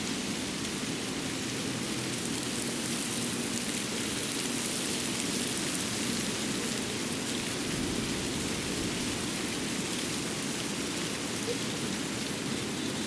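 Winter forest ambience: a steady, even hiss with a light patter through it, like rain falling in the woods.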